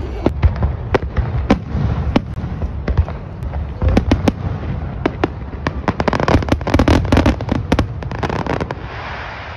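Fireworks display: aerial shells bursting one after another, a stream of sharp bangs and crackles over a low rumble, densest about six to eight seconds in and easing off near the end.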